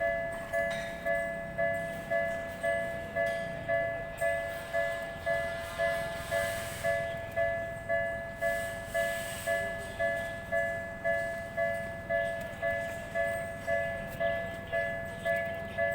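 Japanese railway level-crossing warning bell ringing: an electronic two-tone ding repeating evenly about twice a second, each strike fading quickly.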